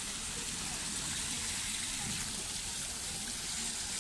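Water of a stone fountain running and splashing steadily into its basin.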